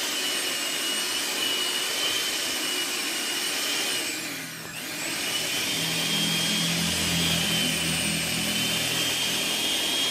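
Electric hand mixer running steadily, its beaters whipping egg whites to a creamy foam. The motor whine drops in pitch and picks up again about four and a half seconds in, and a low hum joins for a few seconds after.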